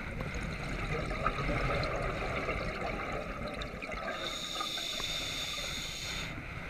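Scuba diver breathing through a regulator underwater: exhaled bubbles gurgle and crackle for about four seconds, then the regulator hisses with an inhalation for about two seconds.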